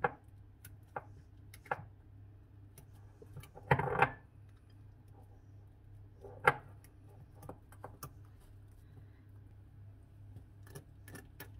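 Fork mashing peeled bananas in a glass mixing bowl: scattered clicks and taps of the fork against the glass, with a louder clatter about four seconds in and a sharp knock a couple of seconds later. A faint steady low hum lies underneath.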